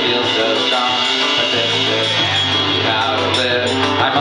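Live indie rock band playing: strummed acoustic guitar, electric bass and drums, with some singing.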